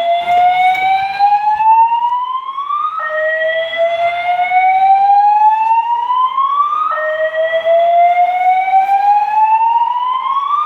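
EST (Edwards) voice-evacuation fire alarm speakers sounding their alert tone: a loud tone that rises slowly for about four seconds, drops back abruptly and starts rising again, repeating about every four seconds.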